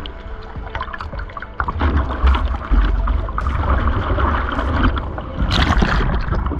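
Seawater rushing and splashing around a surfboard, with a heavy low rumble of water and wind on the camera microphone that grows louder about two seconds in and eases near the end.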